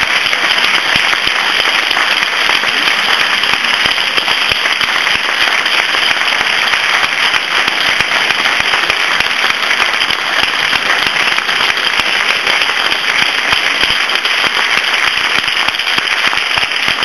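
Theatre audience applauding: many hands clapping in a dense, even patter at a steady level.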